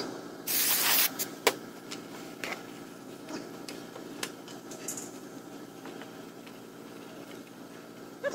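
Paper towel wiped and rubbed over a stamped steel automatic transmission oil pan: a loud rustling swipe about half a second in, then scattered light scrapes and taps as the towel works over the pan's ribs and flange.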